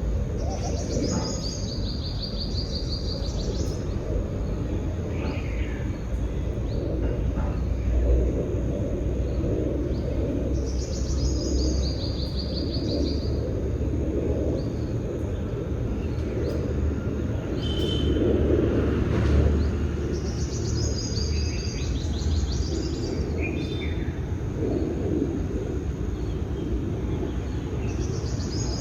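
A songbird singing the same short phrase, a high trill that steps down in pitch, about every ten seconds, with a few single chirps in between, over a steady low rushing background noise.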